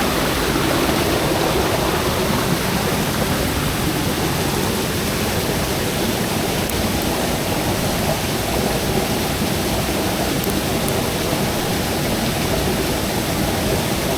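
Steady rushing of running water, an even noise with no breaks or single events.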